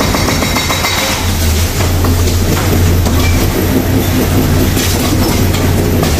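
Yanmar excavator's diesel engine running hard under load, with concrete cracking, crunching and rattling as the hydraulic demolition jaw tears a slab from a wall. The engine's low hum stays steady throughout, and the crackle of breaking concrete comes in dense, irregular clatters over it.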